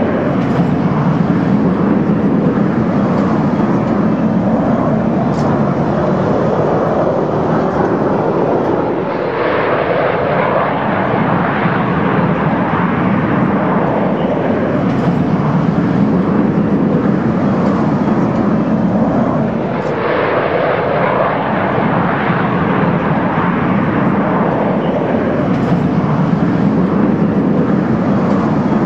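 Steady rushing jet noise from a formation of Snowbirds CT-114 Tutor jets, each with a single turbojet engine, flying overhead. The sound dips briefly about nine and twenty seconds in, then turns brighter as the jets pass.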